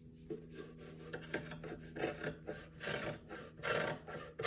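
Scissors cutting through the thick, folded denim at the hem of a pair of jeans: a series of short snips, most of them in the second half.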